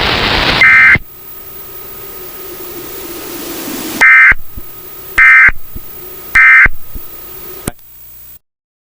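Emergency Alert System end-of-message data tones: harsh, buzzy digital bursts of about a third of a second, played at clipping level. One burst comes right at the start, then a hiss swells for about three seconds, then three more bursts follow about a second apart before the sound cuts off abruptly.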